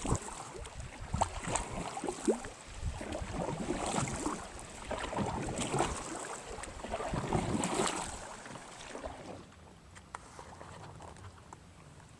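Canoe paddle strokes splashing in river water, swelling about every two seconds, then quieter after about nine seconds.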